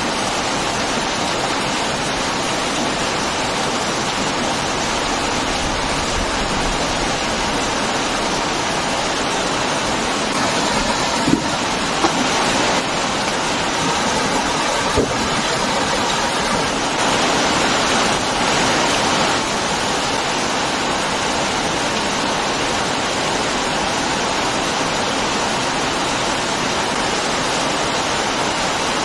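Heavy rain falling steadily, a dense even hiss, with a few brief knocks around the middle and a short swell in the downpour a little after.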